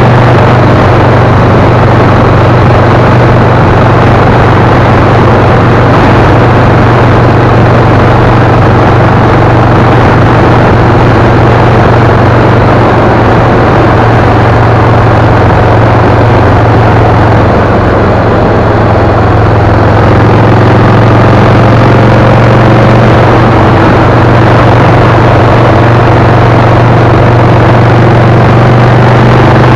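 Vehicle engine running at a steady highway cruising speed: a constant low drone over loud road and wind noise.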